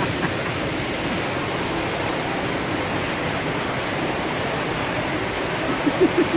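Steady rushing ambient noise, even and unbroken, with a few short vocal sounds near the end.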